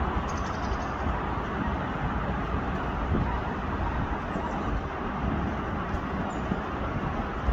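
Steady hum of distant road traffic, with a few faint high chirps near the start.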